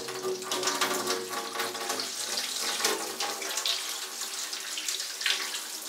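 Kitchen tap running water over cooked noodles in a plastic colander and splashing into a stainless steel sink: the noodles being rinsed under the tap to stop them cooking.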